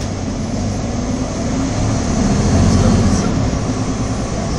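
Cabin sound of a Nova Bus LFSA articulated city bus under way: engine and drivetrain running over road rumble, swelling louder about two seconds in before easing back.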